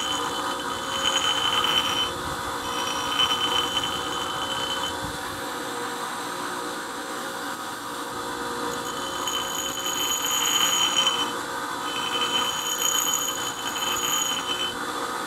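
Grinder running steadily while the flute of a steel twist drill bit is pressed lightly to the grinding wheel and moved back and forth. A high-pitched grinding screech comes in stretches of a second or two, with the motor's hum alone between them.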